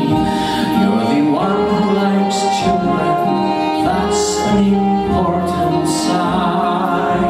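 A man singing a show tune into a microphone over instrumental accompaniment, holding notes with vibrato.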